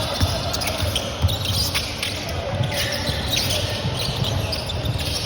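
A basketball being bounced on a court, a run of low thumps, with short high-pitched squeaks now and then over a steady background of a crowded hall.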